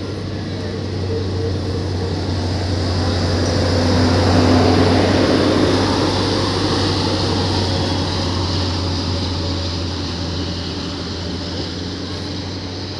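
Diesel-electric multiple unit (DEMU) train pulling out, its diesel engine running with a steady low hum over the noise of the coaches rolling along the rails. The sound swells about four seconds in and then gradually fades as the train moves away.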